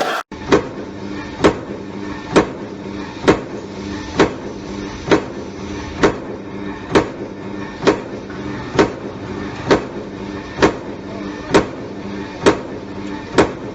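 Razor barbed-wire (Egoza) production machine running: a sharp metallic stroke about once a second, evenly paced, over a steady mechanical hum.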